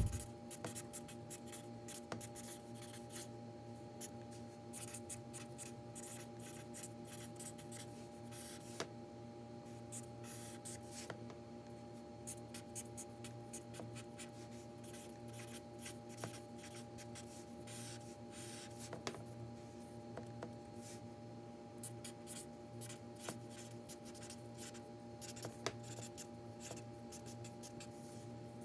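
Felt-tip marker writing on paper: short, irregular strokes as block letters are drawn, over a faint steady hum.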